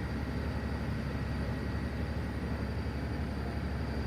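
Steady low drone of a Magic Kingdom passenger ferry underway, its engines running at an even pace.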